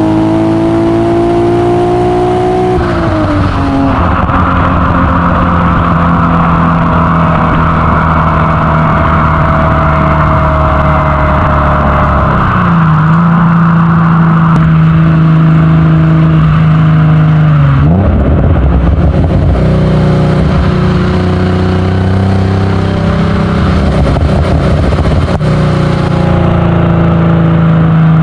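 Modified 3.0-litre Alfa Romeo GTV6 V6 exhaust note while driving. The revs climb for the first few seconds, then drop at a gear change and settle into steady cruising. The revs dip again about halfway through and once more about two-thirds of the way in, before picking back up.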